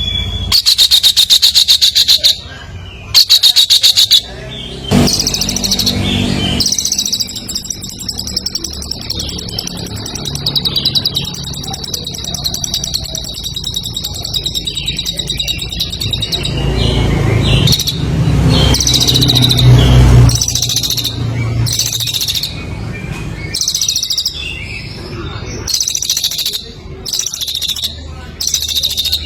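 Songbird singing loudly in fast, rattling trills of rapid repeated high notes, with one long continuous trill in the middle; a low rumble sounds briefly about two-thirds of the way through.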